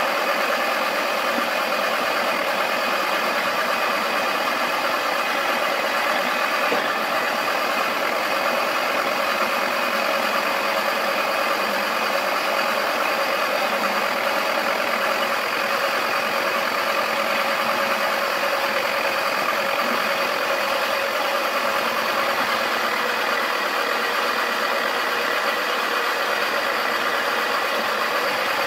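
The small electric motor of a Wacky Washer toy washing machine running steadily as its drum spins, an even, unbroken mechanical hum.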